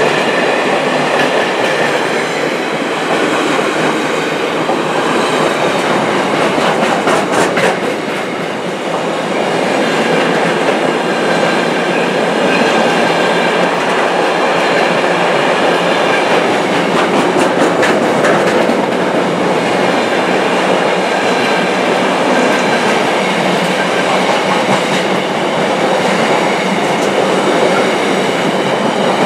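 Container freight train's wagons rolling past at speed, a steady rumble of wheels on rail with a few sharp clicks as wheels cross rail joints.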